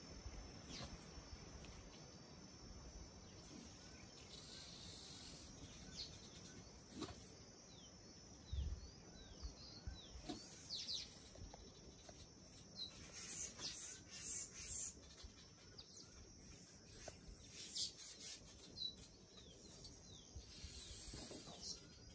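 Faint outdoor background: small birds chirping in short downward-sweeping notes over a steady high insect hum, with a few soft knocks and rustles.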